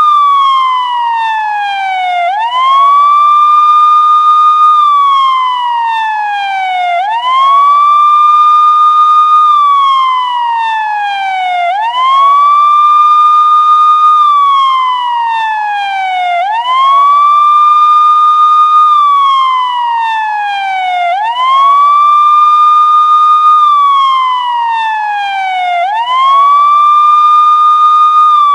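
Police siren on its wail tone. Each cycle rises quickly to a high pitch, holds briefly, then falls slowly, repeating about every four and a half to five seconds.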